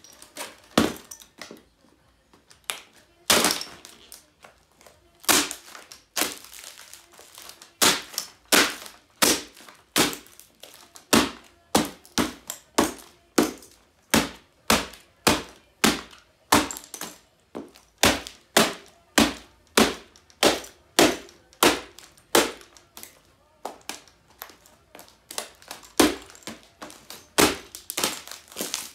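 A laptop's plastic casing, keyboard and broken screen cracking and crunching under high heels stamping on it. The cracks come one at a time, sparse at first, then steady at about three every two seconds.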